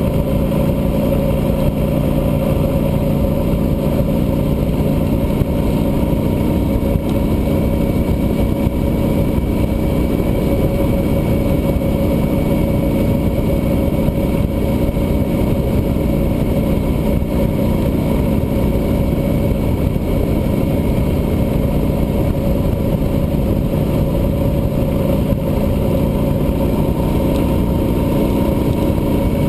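Cruiser motorcycle's engine running steadily at highway cruising speed, mixed with constant wind and road noise.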